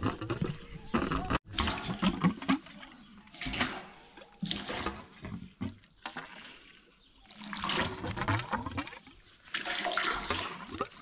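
Water gushing out of a pipe and splashing, coming in uneven surges with a lull about halfway through.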